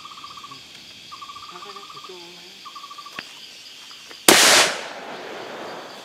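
A single gunshot from a long-barrelled hunting gun about four seconds in, by far the loudest sound, its echo fading over a second or so. Before it, insects trill in short pulsed bursts.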